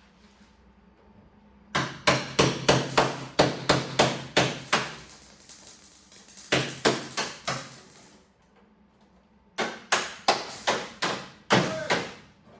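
Hammer blows on metal, about three a second, in several runs of strikes with short pauses between them. This is bodywork hammering during removal of a damaged car body panel.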